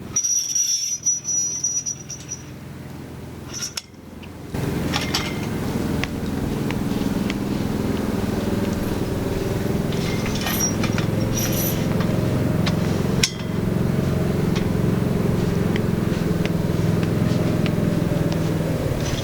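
A steady, engine-like low drone runs under scattered metallic clicks and clinks from a pop-up canopy's frame as its legs are pulled up and latch into place. A sharp knock comes about two-thirds of the way through.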